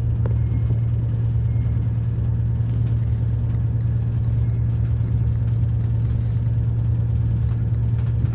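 Class 221 Super Voyager diesel-electric unit heard from inside the carriage as it pulls into a station: a steady low hum from its underfloor diesel engine and running gear.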